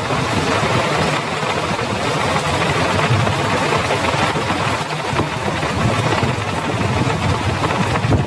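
Heavy rain falling steadily: a dense, even hiss with a low rumble underneath.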